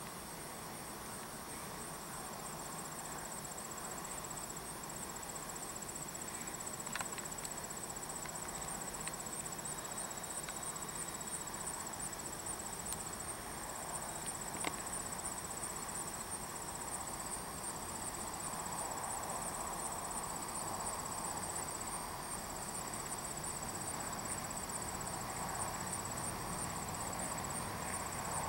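Honey bees buzzing in heavy flight traffic at the hive entrances during a goldenrod nectar flow, growing a little louder toward the end. Under it runs a steady high trill of insects in the grass.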